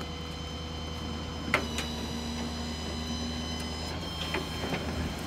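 Rollback tow truck running while its winch lets a wrecked car roll down the tilted bed: a steady engine hum under several high whines, with a sharp clunk about a second and a half in and lighter knocks near the end.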